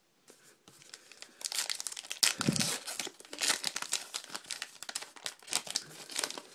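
Trading card pack wrapper being torn open and crinkled by hand, a busy crackling that picks up about a second in and goes on most of the time.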